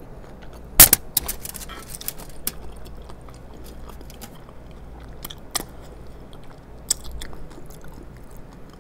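Close-miked chewing of a burger and pickle: wet mouth sounds and smacks, with a sharp click about a second in and a few fainter clicks later.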